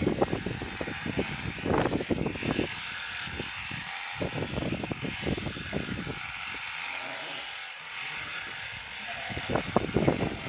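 Sheep-shearing handpiece buzzing through a fleece, with gusts of wind buffeting the microphone.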